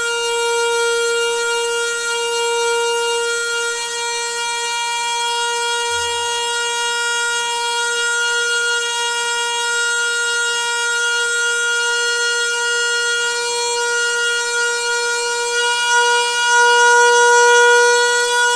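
Noisy water pipe giving a steady, pitched humming drone rich in overtones, swelling slightly louder near the end, with a faint low bump about six seconds in.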